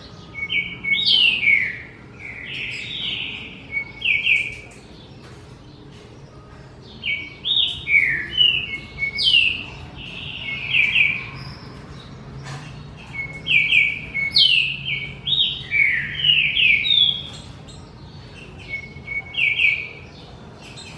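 Songbird singing in repeated phrases of quick notes and falling whistles, each phrase a second or two long, with short pauses between.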